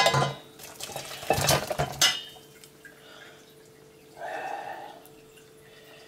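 Metal saucepan clanking and clattering against a stainless steel sink as boiled beetroots and their cooking water are tipped out to drain. The clatter is loudest in the first two seconds, with a shorter scrape or ring at about four seconds.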